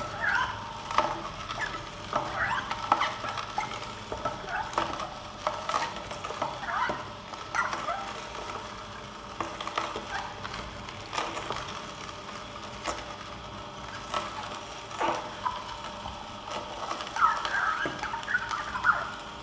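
Oscar DA1000 low-speed masticating juicer crushing pieces of Jerusalem artichoke fed into its chute: irregular short creaks, squeaks and crunches over the steady hum of the motor.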